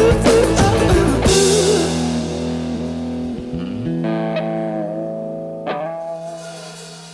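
Music: the instrumental ending of a band's song. The full band stops about a second in, leaving held guitar and bass chords. A last chord is struck near the middle and rings, fading away.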